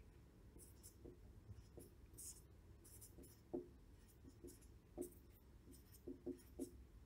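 Marker pen writing on a whiteboard: a string of short, faint strokes as numbers are written out.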